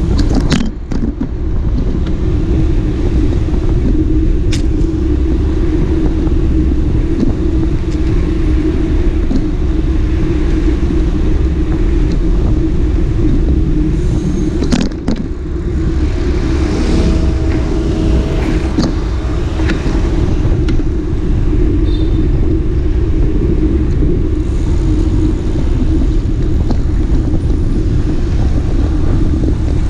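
Steady rumble of a moving vehicle, with a few sharp knocks: one about a second in, one around four seconds, and one near the middle.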